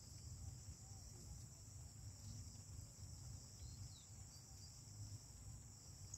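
Faint, steady high-pitched insect chorus, like crickets, over a low background rumble.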